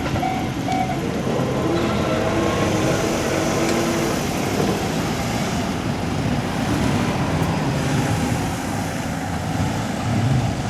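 Japanese level-crossing warning alarm sounding in short repeated tones over the first few seconds, then falling silent as the crossing clears after a train. Road vehicles then run past over the crossing, with an engine rumble growing louder near the end.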